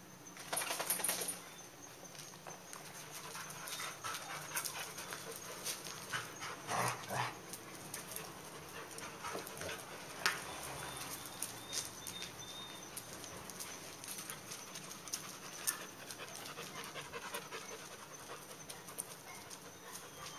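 Dalmatians and a boxer panting hard as they play, with short scuffling noises and a few louder bursts of rough play about a second in and again about seven seconds in.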